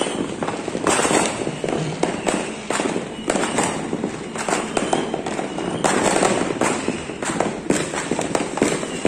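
Fireworks and firecrackers going off without a break: many overlapping bangs and pops over a steady crackle.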